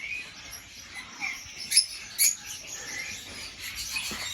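Lovebirds chirping and squeaking with short, sharp calls now and then, the birds unsettled after their aviary was rearranged.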